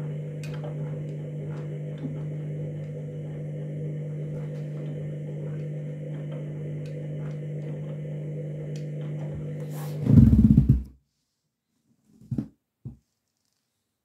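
Candy front-loading washing machine running in the start-up phase of a synthetic 40 °C wash with an overloaded drum: a steady hum with light clicks from the tumbling load. About ten seconds in comes a louder rumble for a second, then the sound cuts out abruptly, followed by two short knocks.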